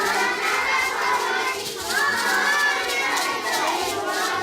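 A hubbub of many young children's voices talking and calling out at once, with light tapping and clatter running under it.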